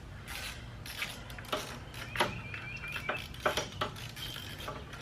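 A socket ratchet and other hand tools working on a lawnmower engine: scattered metallic clinks and knocks, with a short run of quick ratchet clicks a little over two seconds in.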